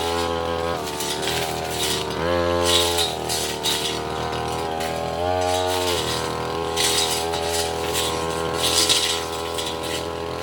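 Tasco 33 Pro two-stroke brush cutter running at working speed, surging louder twice, about two and five seconds in, with a clattering rattle as the cutting head strikes small wood and roots.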